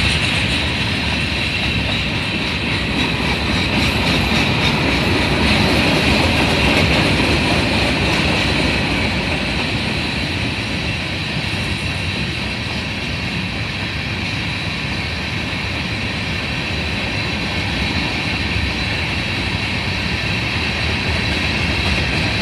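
The cars of a passing train rolling steadily by: a continuous rumble and rattle of steel wheels on the rails.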